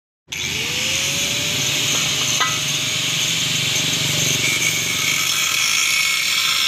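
Steel being arc-welded: a steady sizzling crackle over a low buzz, with a machine tone that rises in pitch over the first second and then holds.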